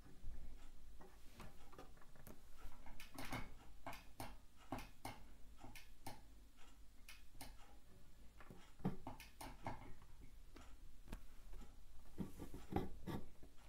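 Scattered, irregular clicks and light taps as a battery cell is pressed against a Sunkko 788H spot welder's electrodes and the welder is triggered, with no weld crack: the welder is dead because its transformer primary is open and no current flows.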